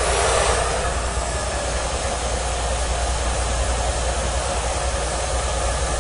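Handheld hair dryer running steadily, blowing air.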